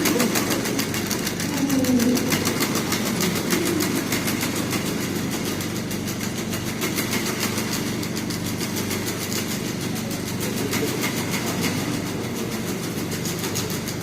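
Unitree Go1 robot dog's leg motors running, a steady mechanical hum with a fast, even ticking.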